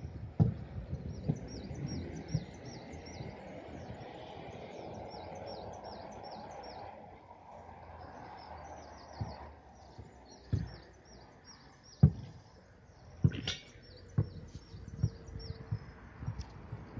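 Birds chirping in runs of quick, high, falling notes over steady background noise, with a few sharp low knocks, the loudest about twelve seconds in.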